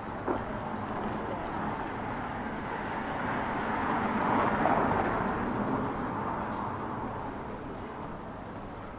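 A road vehicle passing by in street traffic; its noise swells to a peak about halfway through and then fades. A short knock comes just after the start.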